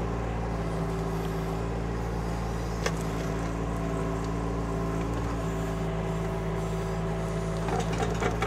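Kymron XH26 mini excavator's Kubota diesel engine running steadily under working load as the machine pushes dirt with its turret swing. A single sharp clank about three seconds in and a few clicks near the end.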